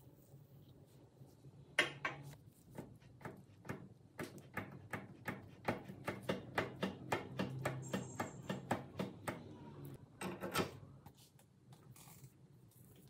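Rust-encrusted cast-iron bench vise being worked by hand, its movable jaw knocking and scraping metal on metal in a rapid run of clicks, about three a second, that stops about two seconds before the end.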